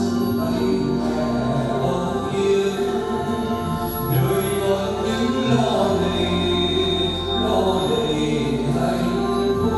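Church choir singing a slow hymn over held chords of accompaniment, the communion music of a Catholic Mass.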